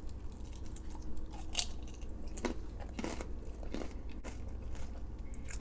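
Close-miked chewing of crispy fried food, with a few sharp crunches at irregular intervals.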